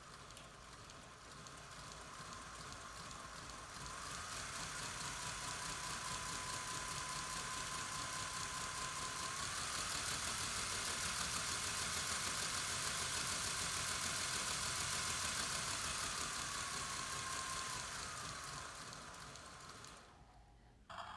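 Lionel BR-50 O-scale model steam locomotive running in place, its motor and running gear making a whine with a rushing hiss. It picks up speed about four seconds in, rises again near the middle, then slows and stops just before the end.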